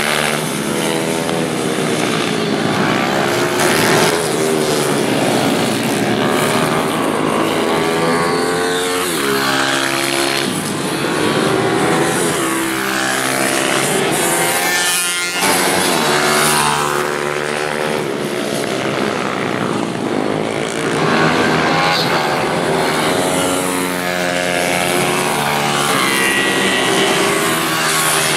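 Several small pitbike and Ohvale minibike engines racing together, their overlapping notes repeatedly rising and falling as the riders rev out, shift and pass close by.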